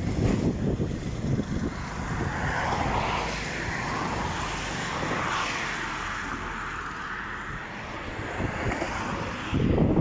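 Wind buffeting the phone's microphone, with a road vehicle passing by: its noise swells and fades over a few seconds in the middle, and the wind gusts again near the end.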